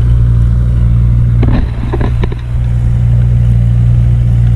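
Tractor engine running steadily with an even low drone while working the field.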